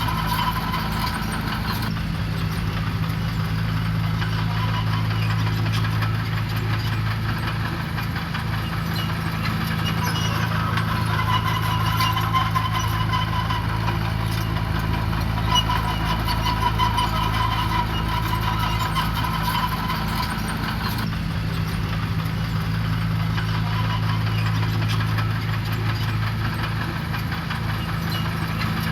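Diesel engine of heavy road-building machinery running steadily, with its note shifting a little twice.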